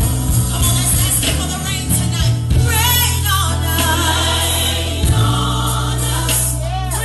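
Gospel music: a choir singing over a sustained low bass accompaniment.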